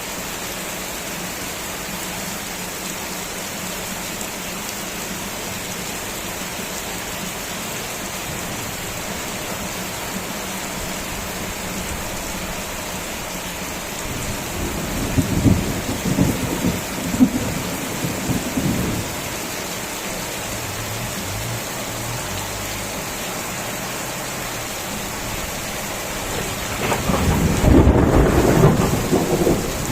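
Steady rain falling, with thunder rumbling twice: a roll lasting several seconds about halfway through, and a louder one near the end.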